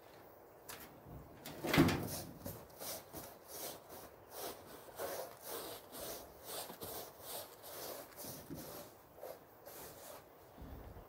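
A painting tool worked in a plastic bucket of wall paint and on the wall. There is a loud knock about two seconds in, then a run of short strokes, about two a second.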